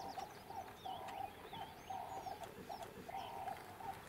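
Birds calling: a steady run of short, evenly repeated low calls, with thin chirps and whistles from smaller birds above them.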